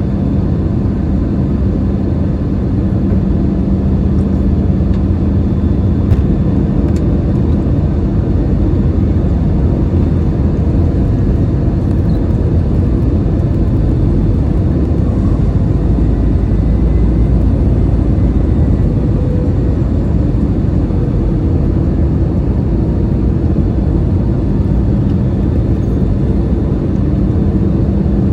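Steady rumble of cabin noise inside an Airbus A321-211 airliner, from its engines and the air rushing past, with a low hum that drops away after a few seconds and returns near the end.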